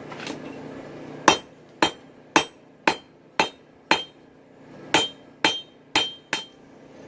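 Hand hammer forging a chainsaw-bar steel blade on an anvil. Ten sharp blows come in two runs, six then a short pause and four, about two a second, several with a brief metallic ring.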